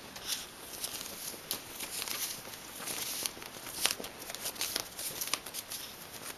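Bedsheet fabric rustling and crinkling irregularly as a kitten scrambles and pounces on it, with one louder rustle about four seconds in.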